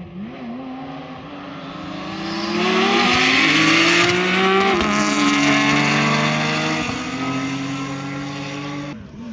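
A rally car's engine under hard acceleration, its pitch climbing for about four seconds and loudest three to four seconds in, then dropping to a steadier, lower note. The sound cuts off abruptly near the end.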